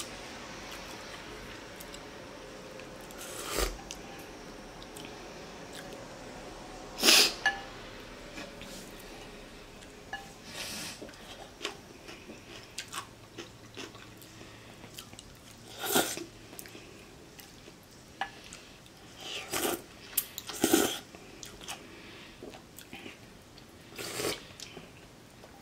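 Person eating beef pho: chewing and slurping long rice noodles and broth, with several short, louder slurps spread through.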